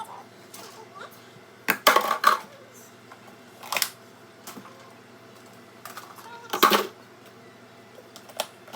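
Fridge contents being handled and set down: short clinks and clatters, with a cluster about two seconds in, another near four seconds and the loudest near seven seconds, plus lighter clicks in between.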